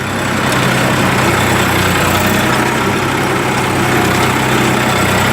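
Tractor engine running steadily at an even speed, pulling a seed drill for sowing.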